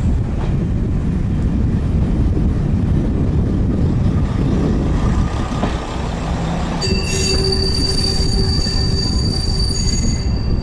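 AC Cars railbus running past close by, a heavy low rumble of its diesel engine and wheels on the rails. About seven seconds in, a steady high-pitched metallic wheel squeal starts and holds for about three seconds before cutting off.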